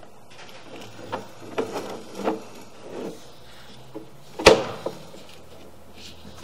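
Hand-feeding of a sewer inspection camera's push cable through a cleanout: scraping and rubbing with a few soft knocks, and one sharp knock about four and a half seconds in.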